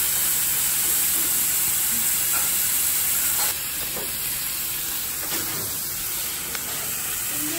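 Chopped kimchi and vegetables sizzling in oil in a hot black pot on a tabletop gas burner: a steady frying hiss that drops a little about three and a half seconds in, with a few faint taps.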